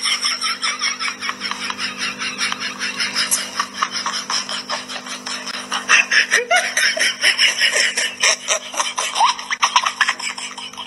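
People laughing in a fast, unbroken run of laughs, with a steady low hum underneath.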